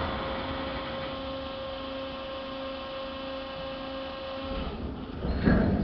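Hydraulic power unit of the pontoon bridge's apron lift running with a steady hum as the aprons are lowered onto the barge. It cuts off about four and a half seconds in, as the aprons settle in place.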